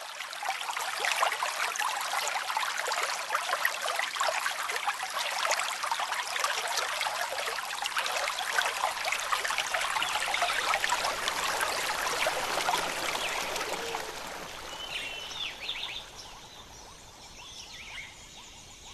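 Shallow river water running and babbling over stones, a dense splashy rush that eases about fourteen seconds in. A few short bird chirps sound soon after.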